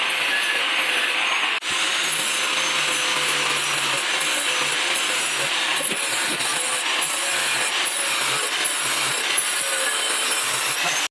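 Steady abrasive noise of a tool working the steel of a saw-blade knife blank, with a faint wavering whine, briefly cutting out about one and a half seconds in.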